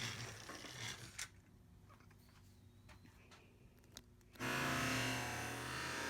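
A few quiet handling clicks, then about four seconds in the battery-powered motor of a Trackmaster toy engine starts a steady whirring run along plastic track.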